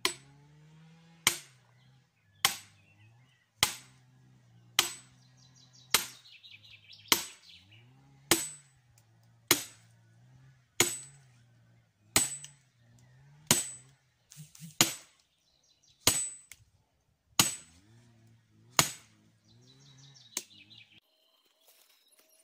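Hammer blows on a metal nail or spike being driven into a log to split it for firewood: sharp metallic strikes with a bright ring, about one every second and a bit, some seventeen in all, stopping shortly before the end.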